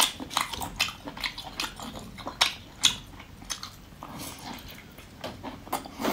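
Close-miked biting and chewing of a large piece of abalone, a string of wet mouth smacks and clicks about two or three a second.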